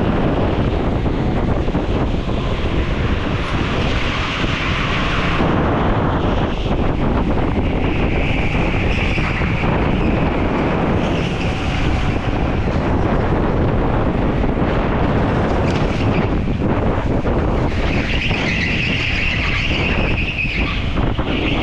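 Onboard sound of a go-kart at speed on a concrete indoor track: dense rushing noise from the motor, tyres and wind buffeting the microphone. The tyres squeal briefly through corners, about eight seconds in and again near the end.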